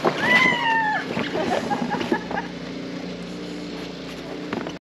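A person's high, falling cry lasting about a second near the start, as a sledder sets off downhill, over a steady low engine-like hum with scattered light knocks; the sound cuts off abruptly shortly before the end.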